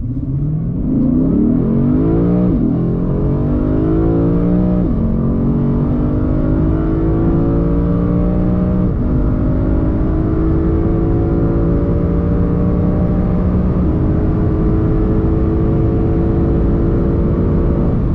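Lexus RC F Track Edition's naturally aspirated 5.0-litre V8 accelerating at full throttle from a standstill, heard from inside the cabin. The engine note climbs through each gear and drops sharply at four upshifts, about two and a half, five, nine and fourteen seconds in.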